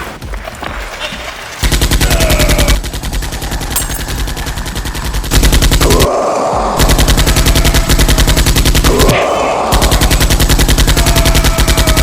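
Rapid automatic gunfire sound effects in several long bursts, with two rushing swells between them, laid over a Nerf blaster battle.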